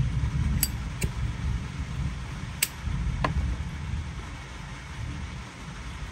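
Zippo lighter handled, giving four short sharp metallic clicks, two close together and then two more a couple of seconds later, over a steady low rumble.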